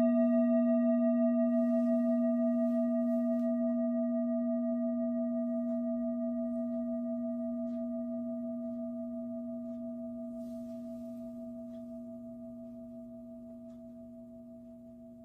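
A single struck bell-like metal tone ringing on and slowly dying away, with a low steady note and higher overtones above it.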